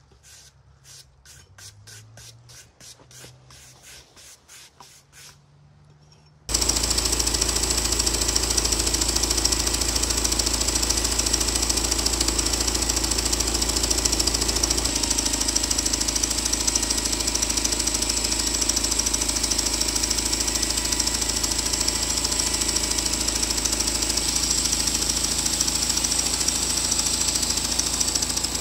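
Faint rapid ticking, then about six and a half seconds in an engine-driven homemade sawmill is suddenly heard running loud and steady, a constant low engine note under a strong hiss.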